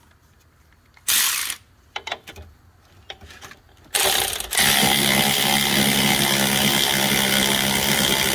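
Cordless power tool spinning a die down a rusted shock-absorber stud, chasing the rust off its threads: a short burst about a second in, then from about four seconds in a steady motor run.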